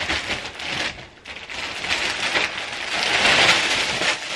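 Plastic sweet packets and their shopping bag rustling and crinkling as they are handled, a dense crackly rustle that swells near the end.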